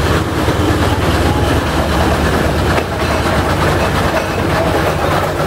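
Steam road roller passing close by, its engine and iron rolls giving a loud, steady rapid clatter and rumble.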